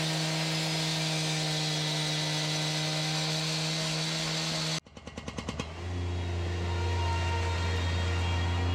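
An engine running at a steady pitch cuts off abruptly almost halfway through. A second engine then starts with a quick run of firing pulses that speed up and settles into a lower, steady idle.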